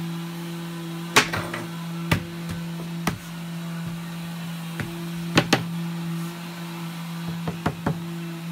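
Sharp knocks on a plywood cabinet box as its panels are pressed and tapped home into their joints, in uneven single blows and a quick cluster of three near the end, the last ones from a rubber mallet. A steady low hum runs underneath.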